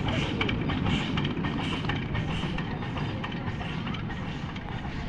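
Miniature steam toy train running along its track, the wheels and open passenger cars rumbling on the rails as it moves away, slowly fading.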